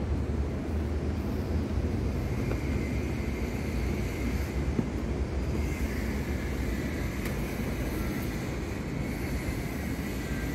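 Steady low rumble of construction-site background noise, with a faint high whine that comes in about two and a half seconds in.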